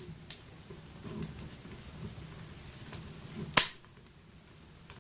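Wood fire burning in a wood stove: scattered small crackles and snaps over a low steady rumble of the flames, with one loud pop about three and a half seconds in.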